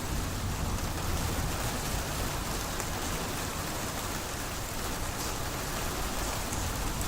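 Steady rain falling during a thunderstorm, an even hiss with no distinct thunderclap.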